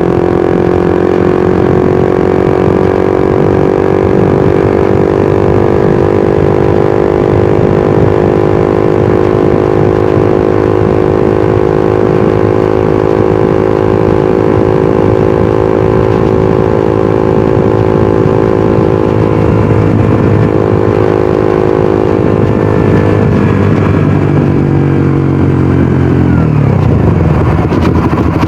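Suzuki GSX-R150's single-cylinder engine and exhaust running under way, holding steady revs for most of the time. About twenty-three seconds in the revs fall away, then start to climb again near the end.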